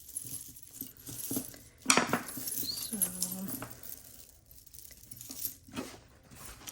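Costume jewelry being handled and moved on a table: clinks, rustling and a sharp knock about two seconds in. A short low steady tone, like a brief hum or whine, sounds about three seconds in.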